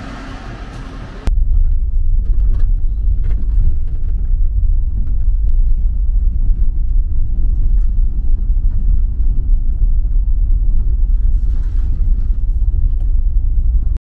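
A loud, steady low rumble that starts suddenly about a second in and cuts off abruptly at the end, with faint scattered clicks over it.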